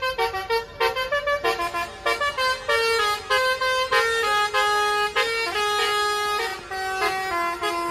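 A tour bus's multi-tone "telolet" horn playing a quick tune of short stepping notes, with a few notes held longer in the second half.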